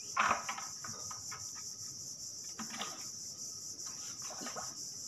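Steady high-pitched chirring of an insect chorus. A few brief knocks and rustles from handling fishing line and bait, the loudest just after the start.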